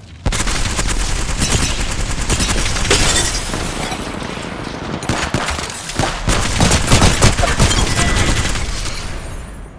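Shooter video game's gunfire sound effects: a dense, continuous run of automatic weapon fire and shots that starts abruptly, is heaviest in the second half, then fades away near the end.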